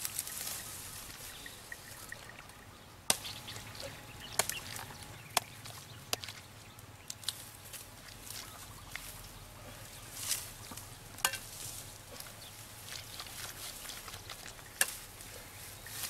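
About half a dozen sharp clicks at irregular intervals, the loudest about three seconds in, a little after five seconds, past eleven seconds and near the end, over a faint outdoor background.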